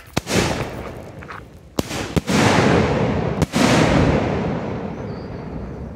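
Aerial salute firework shells going off: a sharp bang just after the start, two more close together about two seconds in, and another about three and a half seconds in, each followed by a long rolling echo that slowly dies away.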